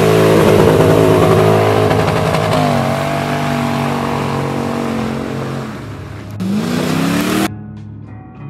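Toyota Hilux pickup's engine revving hard as it ploughs through a mud pit, with tyres churning mud; the engine pitch climbs twice, about two and a half and six and a half seconds in. Near the end the sound cuts off abruptly to background music.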